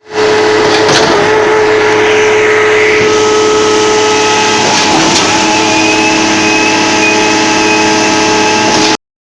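Concrete pump running under pressure: a loud, steady mechanical drone carrying a held tone that steps down slightly in pitch about five seconds in, with a couple of sharp knocks. It cuts off suddenly near the end.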